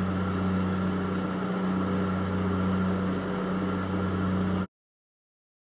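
Dive cruiser's engines running steadily at speed, a constant drone under a rushing hiss of wake water. It cuts off abruptly about a second before the end.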